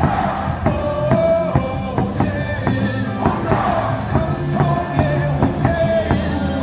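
Baseball crowd singing a batter's cheer song along with loud amplified stadium music over a steady beat.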